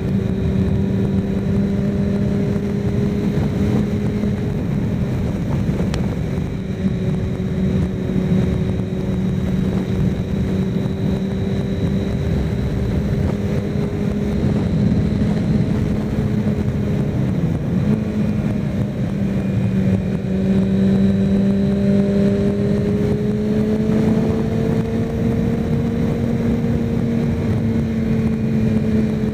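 Kawasaki Ninja ZX6R inline-four engine running at a steady cruising note while riding, with wind noise on the microphone; the pitch dips briefly about seventeen seconds in, then climbs slowly a few seconds later.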